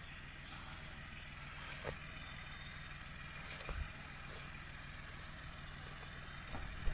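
John Deere 5055D tractor engine running steadily under baling work, with a few short knocks from the machinery about two, four and six and a half seconds in.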